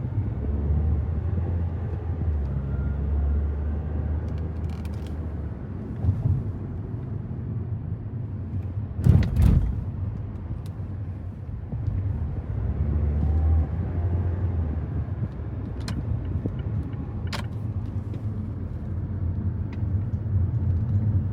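Car driving, a steady low rumble of engine and road noise, with a brief louder burst of noise about nine seconds in.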